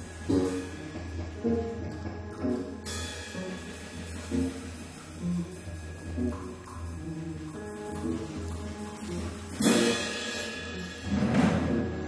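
Music: a low steady drone with short scattered pitched notes above it. A hissing wash comes in about three seconds in, and loud noisy swells come near the end.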